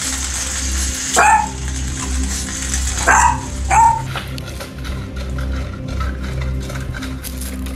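A dog barks three times in short, sharp barks: once about a second in, then twice in quick succession around three seconds in, over background music.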